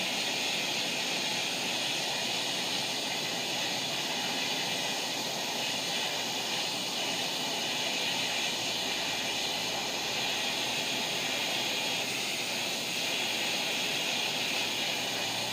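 Handheld gas plumbing torch burning with a steady hiss, its flame heating a copper pipe elbow joint for soldering.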